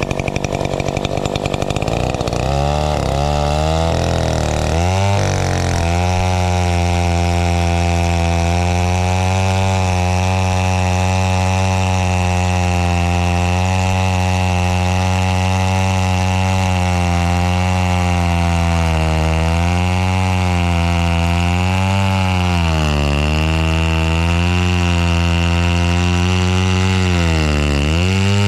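Stihl chainsaw running at high revs while cutting through a log. The engine pitch wavers in the first few seconds, then holds steady, and sags and recovers several times near the end as the chain loads in the cut.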